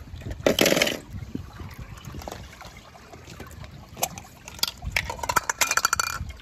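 Water splashing in a loud burst about half a second in, then a run of small clicks and clatter with a brief tone near the end.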